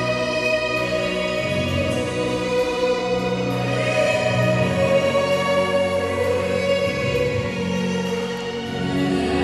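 Recorded choir music with instruments playing through the church's 8-inch loudspeaker system.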